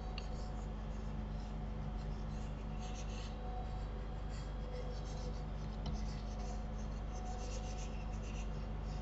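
Faint scratchy rubbing strokes of a computer pointing device dragged over a desk surface as smoothing brush strokes are made, several short strokes in a row. Under them runs a steady low electrical hum.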